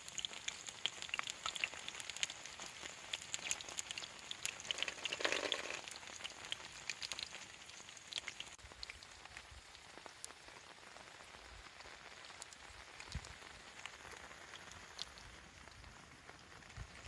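Rain pattering in irregular drops, with a brief louder swell about five seconds in.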